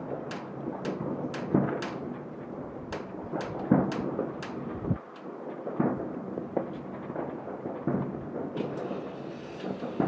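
Fireworks going off across a city: many sharp cracks and pops, a couple each second, over a rolling rumble of heavier booms every second or two.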